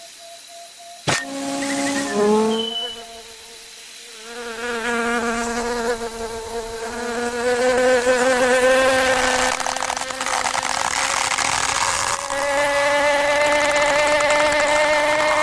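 A sharp click about a second in, then a cartoon insect's buzz sound effect: a wavering, pitched drone that grows louder and slowly rises in pitch.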